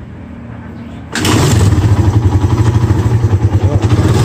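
Suzuki Raider 150's single-cylinder four-stroke engine starting about a second in and then running with a fast, even firing pulse. This is the test start after the timing chain and guide have been replaced and the cam timing set.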